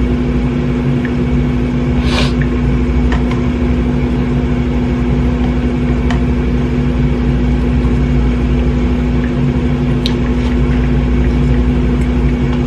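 A steady machine hum with a strong constant low tone, unchanging throughout. Over it come a few light clicks and a brief rustle about two seconds in.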